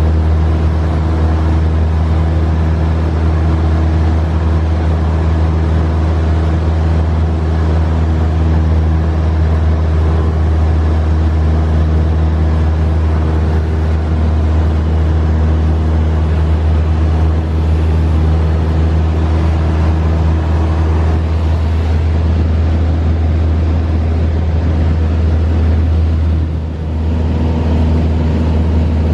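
Engine and propeller of a small single-engine training plane in cruise, a steady deep drone heard inside the cabin. Its pitch shifts slightly and the level dips briefly near the end.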